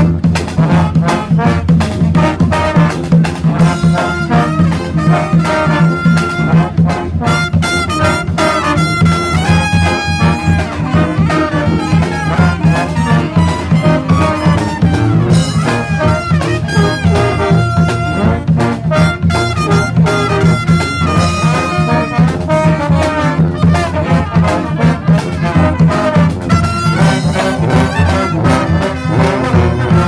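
Street brass band playing live: trombones, trumpets, saxophones and a sousaphone over a steady drum beat.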